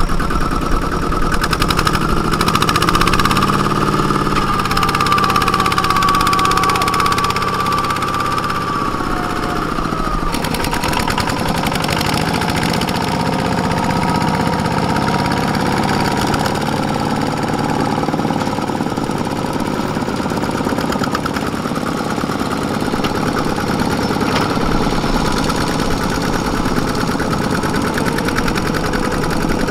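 Two-wheel walking tractor's single-cylinder diesel engine running under load, hauling a trailer of rice sacks through mud and stubble, with a rapid, even chugging beat. The sound changes abruptly about ten seconds in.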